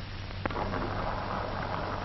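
Steady hum and hiss of an old 1940 film soundtrack, with one sharp click about half a second in, after which the hiss grows louder.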